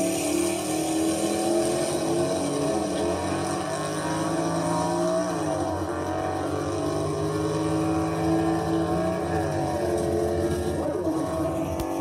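Car engine running, its pitch rising and falling gently a few times.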